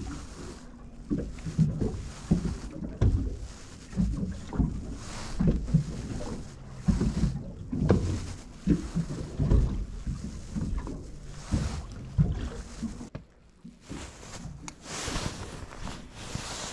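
Choppy waves slapping against a small fishing boat's hull, an irregular run of low thuds, with wind on the microphone. Near the end a louder rushing hiss comes in for about two seconds.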